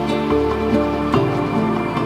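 Calm new-age style background music: sustained chords with soft struck notes.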